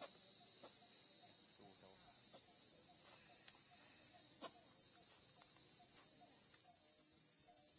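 Steady high-pitched hiss of an insect chorus in woodland, unchanging throughout, with faint short chirps and a few soft clicks on top.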